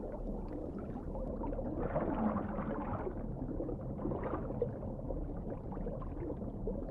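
Low, muffled underwater ambience with soft gurgling, swelling about two seconds in and again around four seconds.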